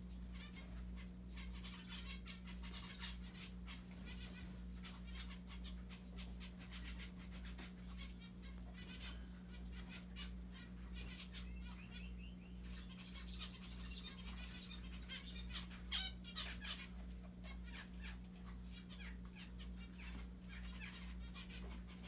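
Zebra finches calling: many short, high chirping calls in quick runs, loudest about two-thirds of the way through, over a steady low hum.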